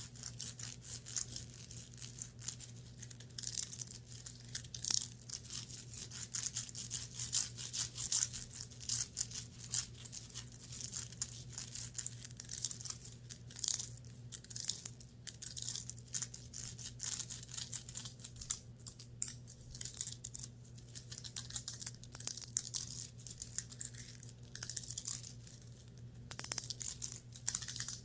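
Close-miked scratching and rustling on the fabric of a clothing top: dense, fast, fine scratchy strokes throughout, over a steady low electrical hum.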